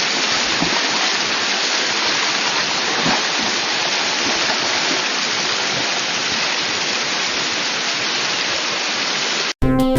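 Steady rush of river water, an even noise with no distinct events. It cuts off abruptly near the end, and music starts.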